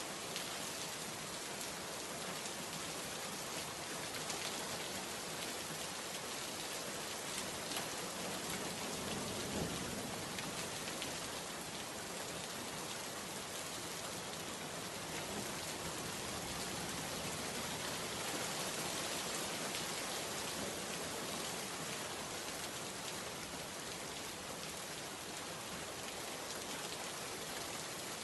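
Heavy rain pouring onto a wet paved courtyard, a steady dense hiss of drops splashing into standing water.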